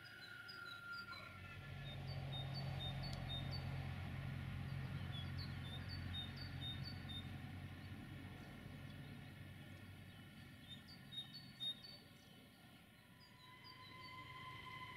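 Engine of a road van converted to run on rails, a low rumble that swells as it passes and fades away over several seconds. Small birds chirp repeatedly throughout.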